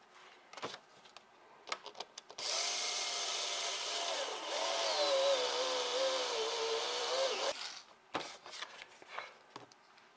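HO-scale slot car's tiny electric motor running with a silicone rear tire pressed against sandpaper to true it: a steady whine over a sanding hiss. It starts a couple of seconds in and lasts about five seconds. The pitch sags a little under the load before it cuts off suddenly. Light handling clicks come before and after.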